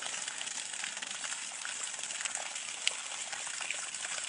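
Water gushing and trickling out of the hollow core of a chainsawed hemlock log, a steady splashing hiss full of small crackles, with one sharp click about three seconds in.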